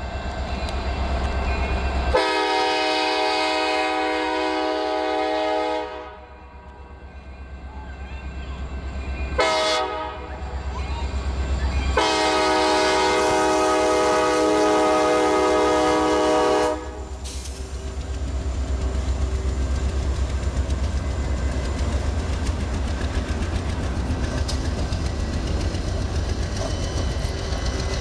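Diesel freight locomotive's horn sounding for a road crossing: a long chord of several notes, a short blast, then another long blast. After the horn, the locomotives rumble past with wheels clacking over the rail joints.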